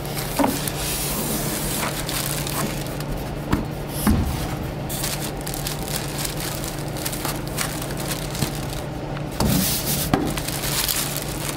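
Clear plastic bag crinkling and polystyrene foam packing pieces rubbing and scraping as they are handled, in scattered rustles and sharp crackles.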